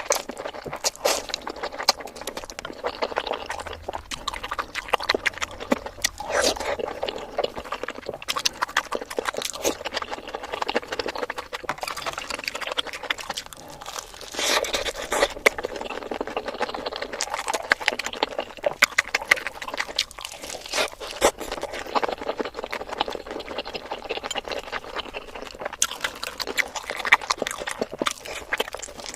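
Eating sounds played back sped up: rapid, dense chewing, crunching and slurping clicks running together in a fast chatter.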